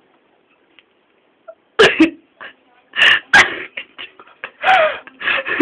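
Mouth sounds from a person: several sharp bursts of breath and voice, like sputters and coughs, beginning about two seconds in after a near-quiet start.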